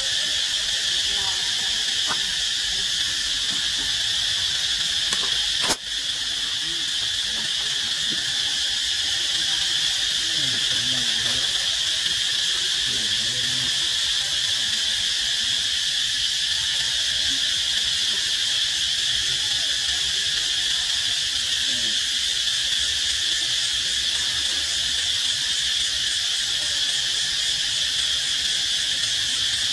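Steady, high-pitched chorus of insects droning without a break. A single sharp click sounds about six seconds in.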